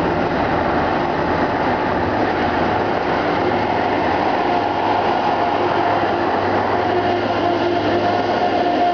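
Steady rumbling road noise from a moving bicycle on pavement, mixed with the running of heavy trucks and machinery, with a few faint steady hums throughout.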